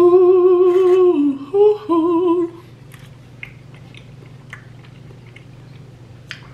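A woman hums a long, wavering sing-song "mmm" of enjoyment as she tastes food: a held note, a brief higher one, then back down, over about two and a half seconds. Faint small clicks follow.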